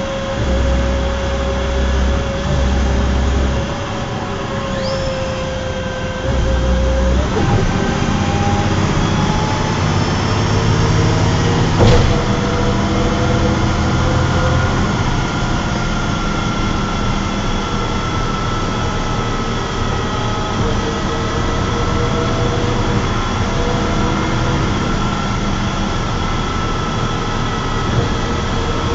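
Cummins ISC six-cylinder diesel engine of an MCW Metrobus double-decker bus running under way, with whining tones that drift slowly in pitch. Heavy low rumbles come twice in the first seven seconds, and a single sharp knock sounds about twelve seconds in.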